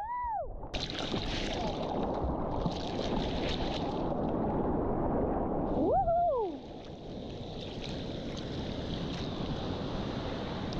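Sea surf and wind as a steady rushing noise, with splashy bursts in the first few seconds. A brief high cry that rises and falls in pitch sounds just at the start and again about six seconds in.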